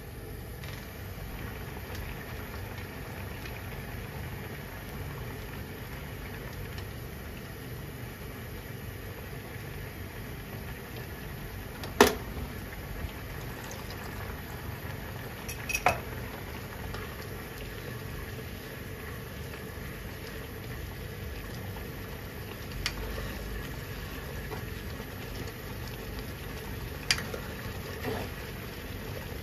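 Kimchi and tofu broth bubbling steadily in a frying pan while potato-starch slurry is stirred in to thicken it, with a few sharp knocks of the ladle against the pan.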